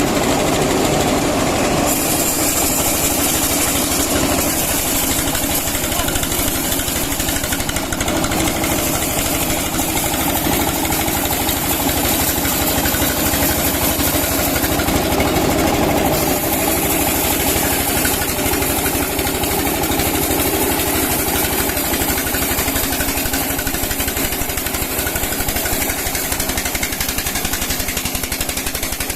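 Sawmill saw machinery running steadily with a constant engine-like drone as teak wood is milled.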